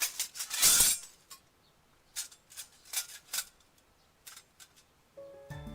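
Metal clicks and clatter from handling the stainless steel BBQ stove and its grill nets, with a brief loud noisy burst about a second in. Background music comes in near the end.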